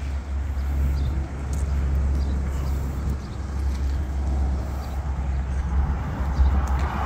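Outdoor road traffic noise with a low, uneven wind rumble on the microphone; the hiss swells near the end as a vehicle passes.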